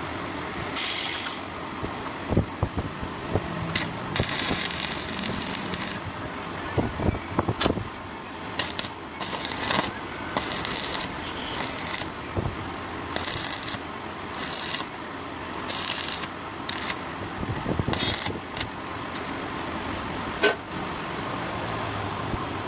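Electric arc welding on steel, crackling in short bursts of a fraction of a second to about two seconds as the arc is struck and broken, with a few sharp metal clicks between.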